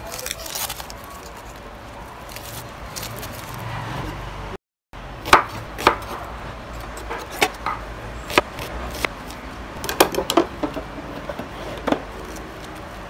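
Chef's knife slicing a red onion on a wooden chopping board: a dozen or so sharp, uneven knocks of the blade on the wood, bunched together around the middle of the cutting. Before the slicing, faint crackling as the dry onion skin is peeled off by hand.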